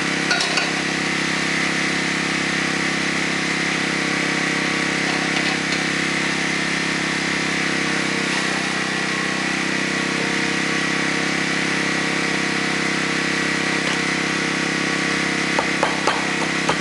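An engine running steadily at a constant speed, with a few light knocks near the start and again near the end.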